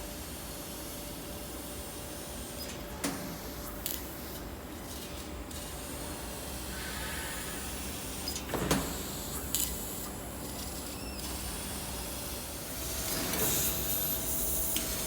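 Laser machine running: a steady hiss with a constant hum, broken by a few sharp clicks and one louder knock about two-thirds of the way in.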